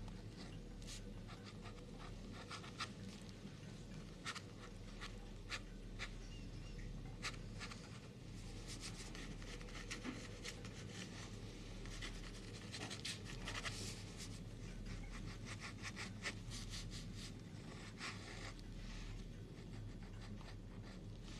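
Quiet room tone with a steady low hum, over which come scattered soft scratches and clicks at irregular intervals, thicker in the middle stretch.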